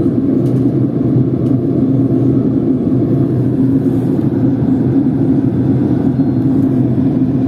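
Steady cabin noise inside a Boeing 767-200 descending on approach: a low, even drone of jet engines and airflow with a steady hum running through it.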